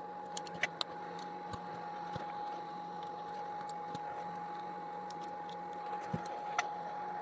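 Small clicks and taps of a battery pack's plastic housing and circuit board being handled and fitted together, a few just after the start and one near the end, over a faint steady hum.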